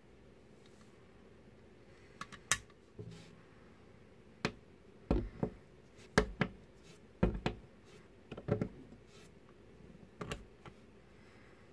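LEGO Technic plastic parts being handled and fitted together: a run of sharp clicks and light knocks, several in quick pairs, coming every second or so.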